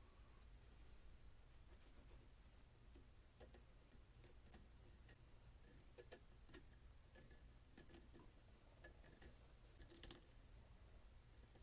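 Near silence: low room hum with scattered faint small clicks and taps.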